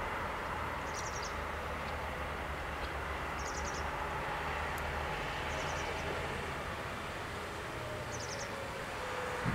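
Steady rushing noise with a low hum, broken about every two seconds by a short burst of rapid high-pitched ticks.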